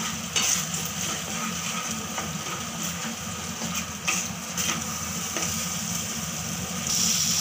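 A spatula stirring and scraping thick masala paste around a nonstick kadai as the paste fries in oil, with a few soft scrapes against the pan.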